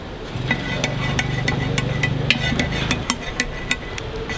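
Quick metallic clicks and taps of a metal spatula and kitchen scissors against a griddle pan as a jeon pancake is cut up. A low steady hum runs under them from about half a second in until about three seconds in.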